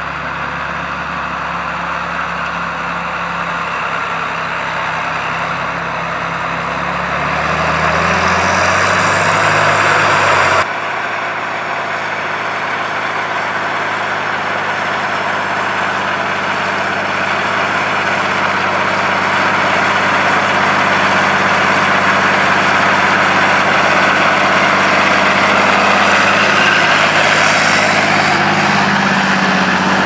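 John Deere 8300 tractor's six-cylinder diesel engine running, its note climbing and getting louder for a few seconds before an abrupt cut about ten seconds in. After the cut it runs steadily under load, pulling a Kverneland PB 100 reversible plough through the soil.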